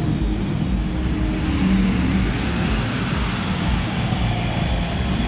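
Engine of a lifted Ford Super Duty dually pickup truck running as the truck drives slowly by, a steady low drone.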